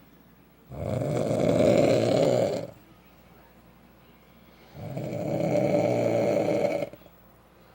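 A man snoring loudly in his sleep: two long snores, each about two seconds, about four seconds apart, with quiet pauses between.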